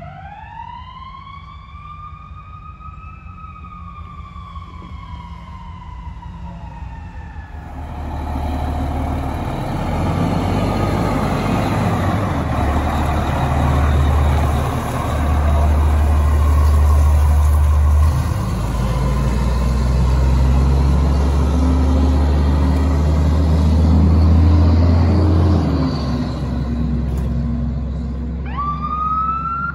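Fire truck siren wailing, rising and then slowly falling away over the first several seconds. The truck then passes close, its engine and road noise loud, with a deep steady drone that shifts in steps. Near the end a siren starts rising again.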